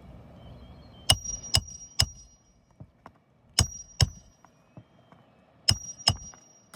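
Hammer blows on metal during a shingle repair: seven sharp strikes in groups of three, two and two, each group leaving a short high metallic ring.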